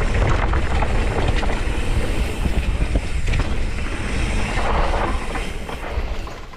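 Mountain bike descending a dirt trail: wind buffeting the camera microphone and knobby tyres rolling over dirt and dry leaves, with scattered clicks and rattles from the bike over bumps. It quietens near the end as the bike slows.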